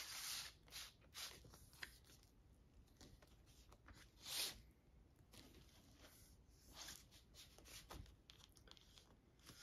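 Paper inner sleeve of a vinyl LP rustling in short, faint swishes as the record is slid out of it and the sleeve is handled, the loudest about four seconds in.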